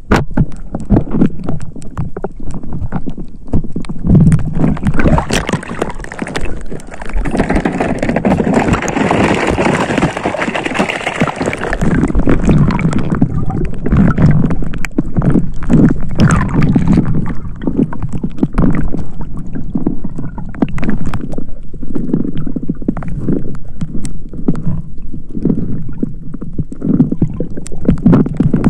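Seawater sloshing and gurgling around a camera held by a swimmer, in uneven low surges about once a second, with a louder rushing stretch about a quarter to a third of the way in.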